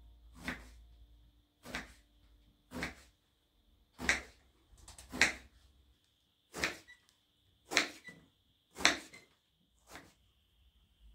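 A series of about nine sharp knocks, roughly one a second, over a faint steady high-pitched tone.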